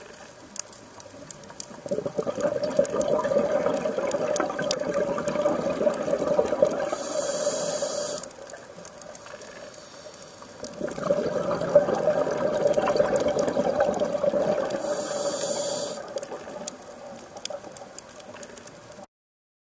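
Scuba diver breathing through a regulator underwater: two long spells of exhaled bubbles rushing, a few seconds apart, each ending with a brief high hiss.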